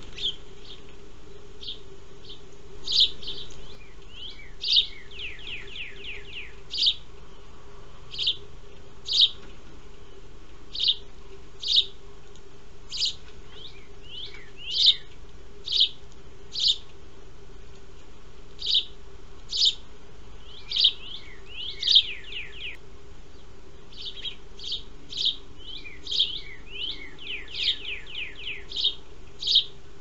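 Sparrows chirping: single short, high chirps about once a second, with quick runs of falling notes three times.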